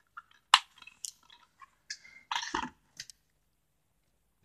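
Plastic DVD cases handled and put away: a few sharp clicks and rattles, the loudest about two and a half seconds in.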